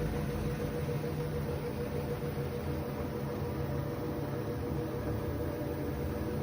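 LG washing machine running with a steady hum, a faint constant tone and a low rumble, while in its suds-lock state, which it goes into when it detects too many suds.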